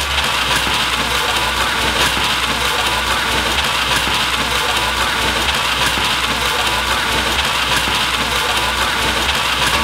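A motor running steadily under the dense, mixed noise of a busy street market.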